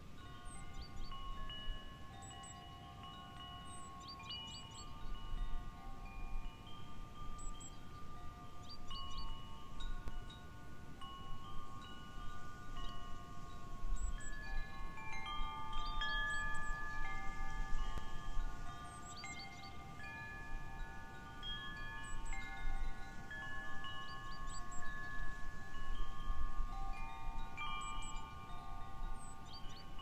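Wind chimes stirred by the wind, struck at irregular moments. Their clear tones overlap and each rings on for several seconds, with a low wind rumble underneath.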